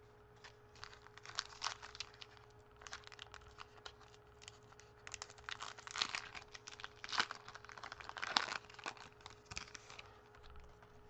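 Foil trading-card pack wrapper being torn open and crinkled: a run of irregular crackles and rustles.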